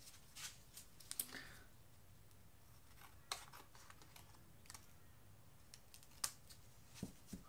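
Scissors snipping a piece of card: faint, short cuts at irregular intervals, about ten in all.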